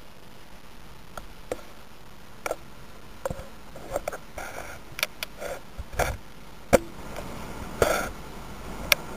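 Irregular sharp pops and crackles from a small copper coil heating water in a bowl, a dozen or so at uneven intervals over a low steady hiss, with a brief rasping burst near the end.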